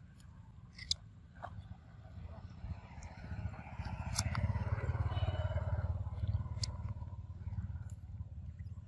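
A motor vehicle passes close by, its engine rumble swelling from about three seconds in, loudest in the middle, then easing off near the end. A few sharp clicks are scattered over it.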